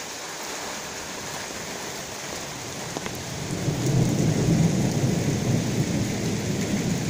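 Steady rain falling in a thunderstorm. About halfway through, a long low rumble of thunder builds, loudest a second or so later, then eases slowly.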